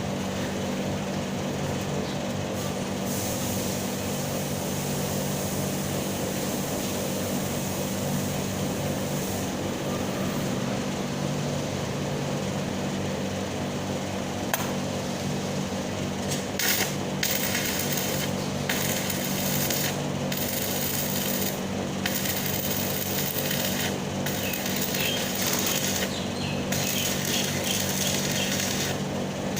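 Stick (shielded metal arc) welding arc crackling and sizzling, starting and stopping in runs of one to two seconds with short breaks from a little past halfway, over a steady low hum.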